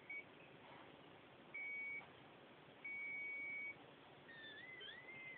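High-pitched electronic whine tied to a wired optical mouse on an Acer Aspire Revo. It sounds as a steady single tone in short spells: a blip at the start, about half a second, then about a second. From about four seconds in it becomes a two-tone whine that wavers up and down in pitch.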